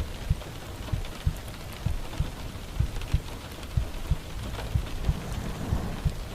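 Steady rain falling, with a slow heartbeat beneath it: low paired thumps, lub-dub, about once a second.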